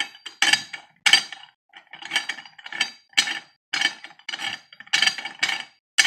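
Metal parts of a Lem #8 meat grinder clinking and clattering as they are handled and fitted together, in a quick irregular run of short knocks, about two a second.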